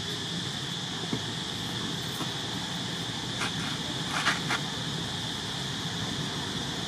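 Steady high, even drone of insects. A brief cluster of short clicks about four seconds in.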